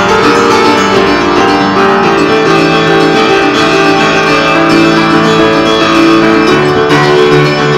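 Old upright piano played in an improvised jam: dense, ringing chords over a held bass note that comes in about two seconds in and shifts near the end.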